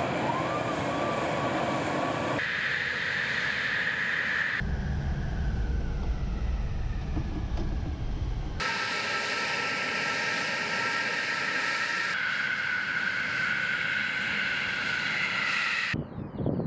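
Tu-22M3 bombers' Kuznetsov NK-25 jet engines running, a steady rushing noise with a high whine, heard in short clips cut one after another. For a few seconds in the middle the sound is a heavy low rumble, as heard inside the cockpit. Near the end it cuts to a quieter sound.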